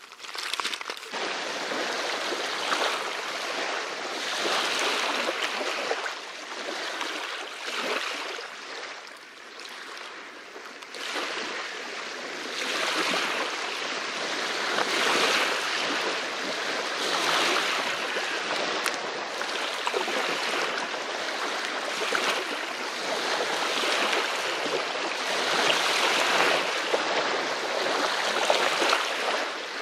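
Small waves lapping onto a sand-and-pebble river shore, each wash swelling and fading every two seconds or so.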